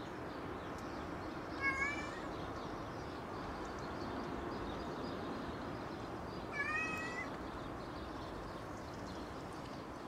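A cat meowing twice, two short rising calls about five seconds apart, over a steady low background hum.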